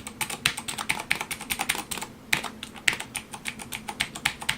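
Typing on a Razer BlackWidow Ultimate 2013 mechanical keyboard: a quick, irregular run of key clicks, several a second, with a short break about halfway through.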